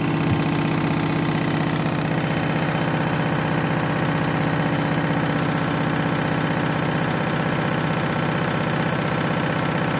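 Candy washing machine in its final high-speed spin on a cottons cycle: the drum and motor run with a steady hum and a fast, even pulsing.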